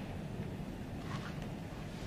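Steady low background rumble, with no distinct event in it.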